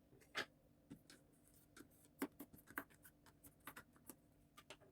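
Faint, irregular taps and rubs of fingers on card as the glued base of a paper favour box is pressed down from the inside: about a dozen short scrapes and knocks.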